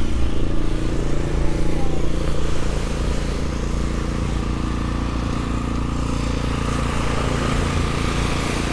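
A motor vehicle's engine running steadily, a low even hum, somewhat louder and rougher for the first couple of seconds and then settling.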